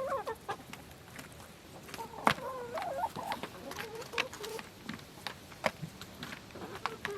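Chickens clucking, with wavering calls near the start and again around two to three seconds in, over many short sharp ticks and taps, the loudest a single tap about two seconds in.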